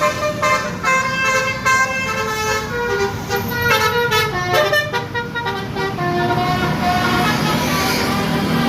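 Basuri telolet bus horns playing a quick tune of short stepping notes, then holding longer notes near the end, over the low rumble of bus engines.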